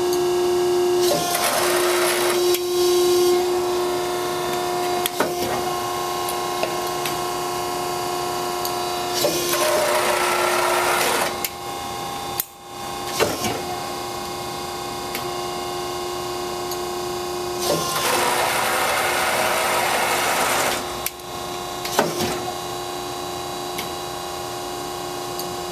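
Hydraulic press brake (1986 Wysong Hydra-Mech, 20-ton) running with a steady humming pump while the ram is cycled. Three spells of rushing hydraulic noise come about eight seconds apart, with sharp clicks in between.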